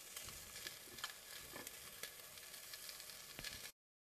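Fork and knife clicking lightly against a plate a few times over a faint steady hiss. The sound cuts off suddenly near the end.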